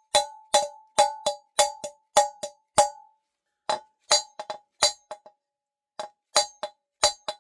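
Hammer tapping a new ball bearing into a motorcycle wheel hub, metal on metal, each tap ringing briefly. The taps come about two to three a second, with short pauses about three seconds in and again about five seconds in.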